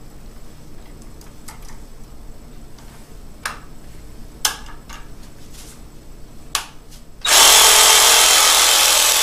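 Black & Decker reciprocating saw: a few sharp clicks as the blade is fitted, then about seven seconds in the motor starts and runs steadily and loudly with no load.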